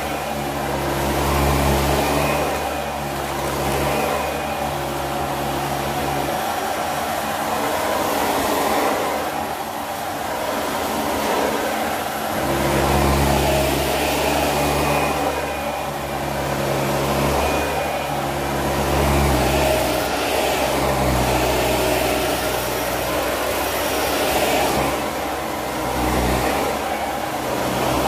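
Dyson upright vacuum cleaner running, its cleaner head pushed back and forth over carpet. The sound swells and eases every few seconds as it moves.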